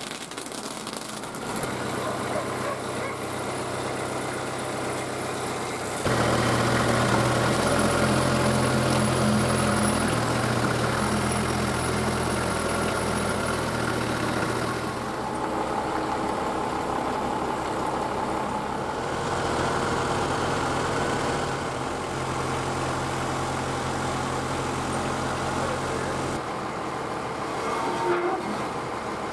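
Kubota compact tractor's diesel engine running at a steady speed, louder from about six seconds in, with abrupt jumps in level at several points.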